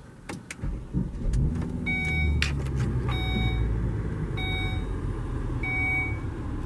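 2015.5 Volvo XC60 T6 AWD engine starting from the push-button ignition: a few clicks, then it catches about half a second in, its revs rise briefly and settle to a steady idle. The car's electronic chime sounds four times at even intervals over the idle.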